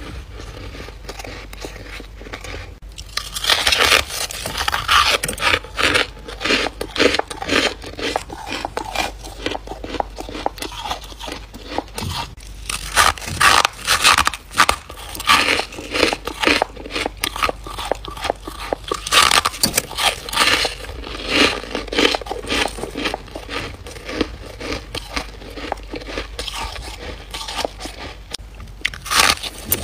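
Close-up crunching and chewing of fluffy freezer frost, bite after bite. It is quieter for the first few seconds, then dense crackly crunches come thick and fast for the rest.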